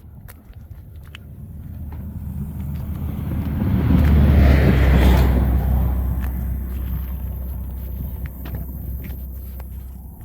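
A road vehicle driving past, its rumble and tyre noise growing to a peak about halfway through, then slowly fading away.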